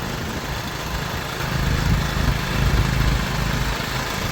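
Vehicle engine running steadily with road noise, heard while riding along.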